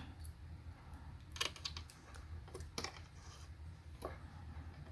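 Light clicks and taps of multimeter probes being handled against a battery's terminals: a quick cluster just over a second in, then single clicks near three and four seconds, over a low steady hum.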